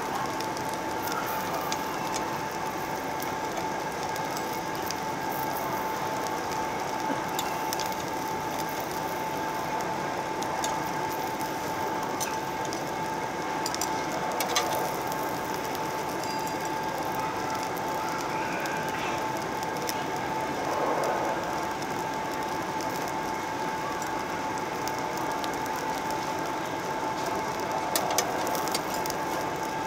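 Mushrooms and garlic sizzling and crackling steadily on a perforated Korean BBQ tabletop grill, with a couple of sharp clicks of metal tongs against the grill.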